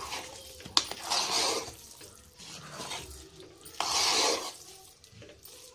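Metal spoon stirring thick, mushy rice and moong dal in an aluminium pressure cooker: a sharp clink against the pot about a second in, and two bursts of wet scraping and squelching, one just after the clink and one about four seconds in.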